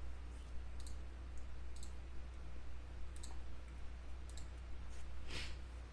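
Computer mouse clicking: about nine faint, sharp clicks scattered irregularly, over a steady low electrical hum.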